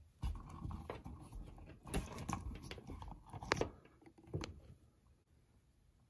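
Hands handling stiff electrical wires and a plastic smoke alarm: irregular rustling and crinkling, with three sharp plastic clicks.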